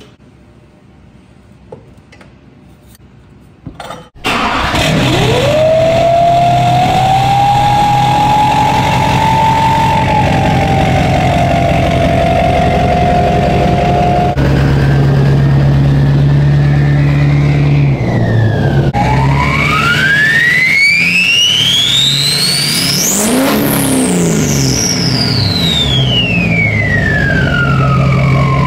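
Duramax LBZ turbo-diesel, fitted with a 9-blade 64 mm turbo and a 5-inch straight-pipe exhaust, starts about four seconds in and idles, with a turbo whistle that climbs and then holds steady over the low engine note. Later it is revved once: the turbo whistle rises to a very high pitch and then falls slowly away as the engine settles back.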